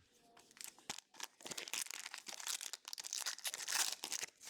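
Crinkling and tearing of a trading-card booster pack's foil wrapper, a dense run of small crackles about a second and a half in that goes on until just before the end.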